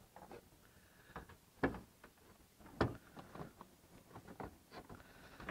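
Irregular faint clicks and knocks of hard plastic as hands work a Ford F-150's loosened headlight housing out of its mount. The loudest knocks come a little under two seconds in and about three seconds in.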